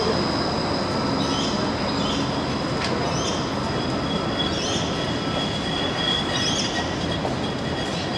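Bombardier Flexity 2 light-rail tram running slowly past at close range: a steady rumble of wheels on rail with a high, steady electric whine. Short high squeaks recur every second or so.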